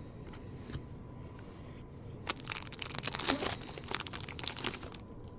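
Foil wrapper of a 2022 Bowman Baseball trading-card pack being torn open and crinkled. It is a dense crackle lasting about two and a half seconds, starting about two seconds in, with faint card-handling clicks before it.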